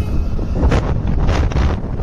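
Wind rushing over the microphone of a moving motorcycle: a loud, steady low rumble with two brief surges of buffeting near the middle.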